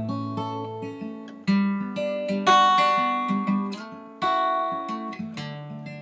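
Acoustic guitar music: strummed and plucked chords changing every second or so.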